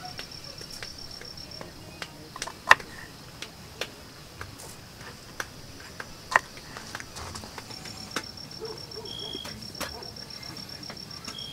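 Kitchen knife slicing okra on a bamboo cutting board: irregular sharp knocks of the blade on the board, the two loudest a little under 3 and 6.5 seconds in. An insect's fast, high pulsing trill runs at the start and comes back about two-thirds of the way through.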